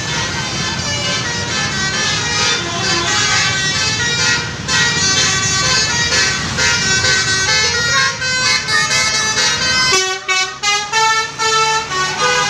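Multi-tone musical horns on buses and cars, of the telolet and basuri kind, playing quick tune-like runs of notes over engine and traffic noise. About ten seconds in, the sound changes to short, separate horn notes with gaps between them.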